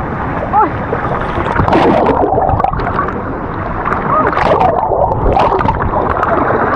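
Loud, steady rush of churning waterfall and river water, with splashing. The flow is worsening, as the swimmers see it.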